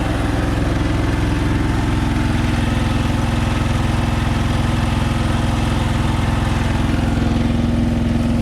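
Konma MT-S411D harvester running steadily, its engine and threshing mechanism turning over with a fast, even pulse and a steady hum that settles into a clearer tone about two seconds in.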